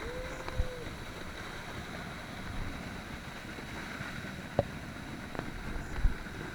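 Steady rush of waterfall water mixed with wind on the action camera's microphone, with a short held tone just after the start and a couple of sharp clicks later on.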